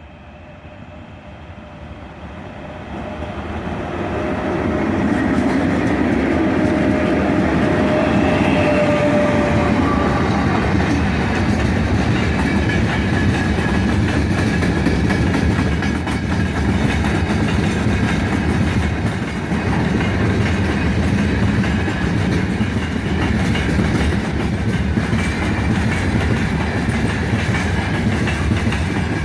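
3ES5K 'Ermak' electric locomotive and its freight train approaching, growing steadily louder over the first few seconds. It then passes at a steady loud rumble of wheels on the rails.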